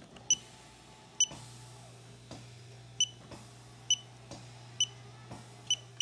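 Osaki TP-8500 massage chair beeping: six short high electronic beeps a little under a second apart as the remote's adjustment buttons are used, over a low steady hum from the chair's motor repositioning the back and leg rest, which grows stronger about a second in and stops just before the end.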